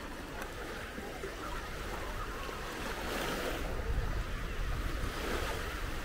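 Small waves lapping and washing up a sandy shoreline, one wash swelling about three seconds in, with faint distant voices of beachgoers and some wind buffeting the microphone.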